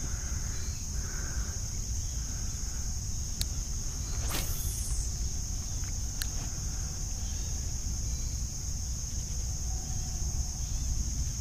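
Steady high-pitched chorus of crickets or other insects over a low rumble. About four seconds in, a single swish falls in pitch as a fishing rod is cast, and there are a couple of light clicks.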